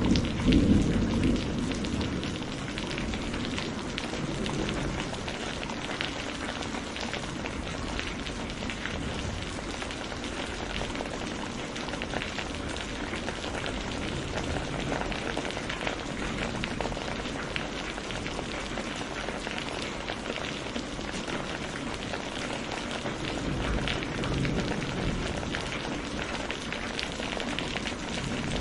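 Steady rain, an even hiss of many drops. A roll of thunder dies away in the first couple of seconds, and a fainter low rumble of thunder swells near the end.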